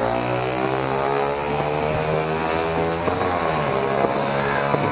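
A motor vehicle engine runs close by. Its pitch falls over the first second, holds steady, then dips and rises again about three seconds in.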